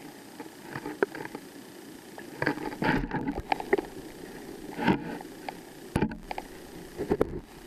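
Muffled underwater handling noise from a camera held under the river: a steady hiss with irregular knocks, scrapes and short thumps of water and hands moving against the camera, the loudest about three, five, six and seven seconds in.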